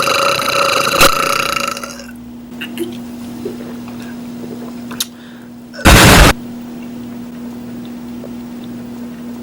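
Edited, distorted burping. A drawn-out burp at a steady pitch cuts off about two seconds in, with a low steady hum underneath. About six seconds in comes a single very loud, clipped blast lasting about half a second.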